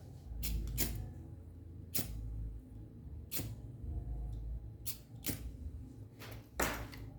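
Scattered sharp clicks and small knocks, about eight of them, from a lighter and wires being handled while a heat-shrink sleeve is shrunk with the flame. Patches of low rumble come between the clicks.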